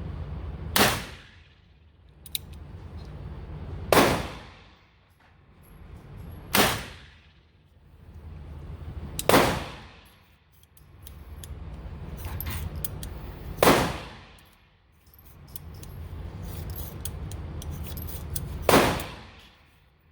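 Six single gunshots on an indoor range, spaced a few seconds apart at an uneven, unhurried pace. Each has a short ringing echo off the range walls, and a low steady background hum fills the gaps.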